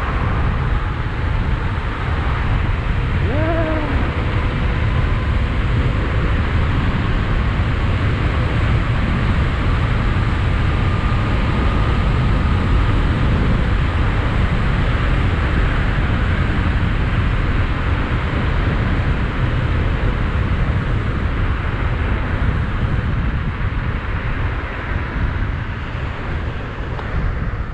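Wind rushing over the microphone with road noise from a 72-volt, 5000-watt DIY electric bike riding at speed, along with a faint whine that drifts slowly in pitch. The noise eases slightly near the end.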